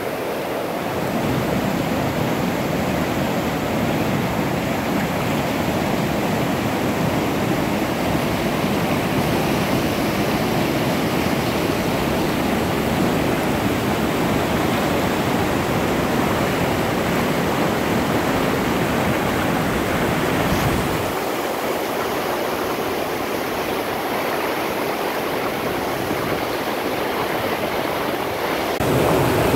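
Snowmelt-swollen mountain river rushing over boulders in whitewater rapids, a steady, loud roar of water. About two-thirds of the way through, the deep rumble drops out and a lighter rushing hiss is left.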